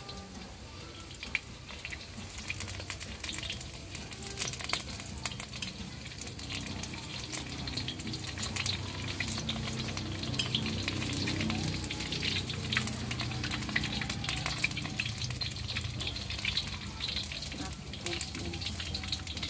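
Corned beef meatballs sizzling and crackling in hot oil in a steel wok. The spatter grows busier and louder after the first few seconds.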